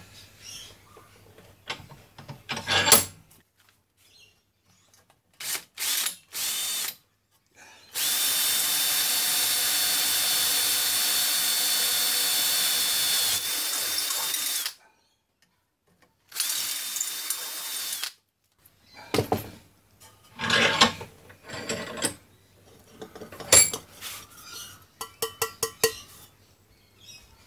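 Cordless drill boring through a small aluminium nipple welded onto an aluminium intercooler charge pipe. It runs as a steady high whine for about seven seconds, slows and stops, then gives a second, shorter burst of about two seconds. Before and after come scattered knocks and clatter of the pipe being handled on the metal bench.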